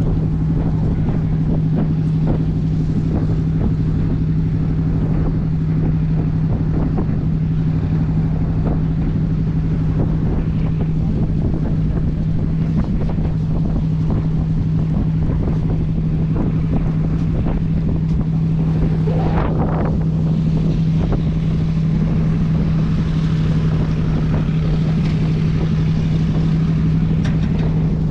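River boat's engine running with a steady, unchanging drone, with wind and water rushing past. A brief higher-pitched sound rises over it about two-thirds of the way through.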